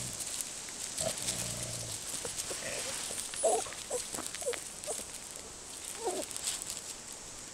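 Terrier puppy making a string of short, squeaky grunts while playing, with paws and body scuffling on gravel.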